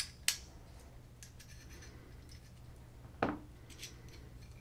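Small hard parts of a side charging handle kit clicking and clinking as they are handled and separated. There are two sharp clicks at the start, a few faint ticks after a second, and a louder knock about three seconds in.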